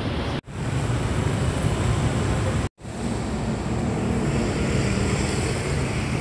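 Steady outdoor traffic and street noise, broken twice by brief drops to silence, about half a second in and again near three seconds in.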